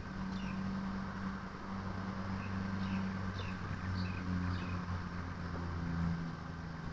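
A low, steady engine drone with a humming pitch that shifts slightly, with a few short high chirps of small birds over it.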